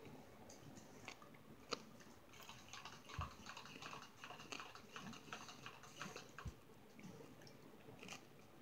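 Faint chewing: soft, quick crackly mouth sounds of someone eating, densest in the middle of the stretch, with a single sharp click a little under two seconds in and two dull low thumps.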